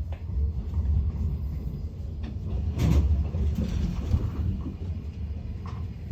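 Tram running on its rails: a steady low rumble, with a sharp clack about three seconds in.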